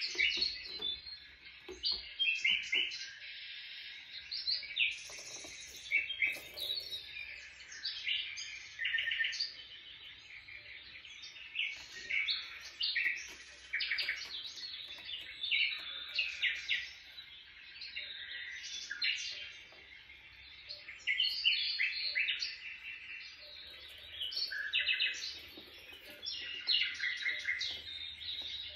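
Birds chirping and twittering, many quick calls and short trills one after another without a break.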